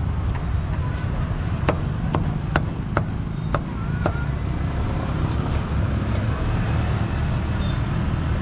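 Cleaver chopping roast pork on a thick wooden chopping block: about five sharp strikes in the first half, over a steady low rumble of street traffic.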